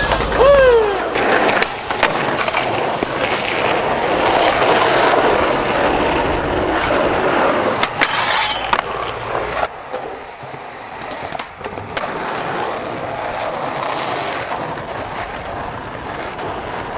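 Skateboard wheels rolling over concrete and asphalt, with sharp clacks of board pops and landings and a grind along a metal handrail. A short falling squeal comes about half a second in. The rolling sound changes abruptly several times across a run of short clips.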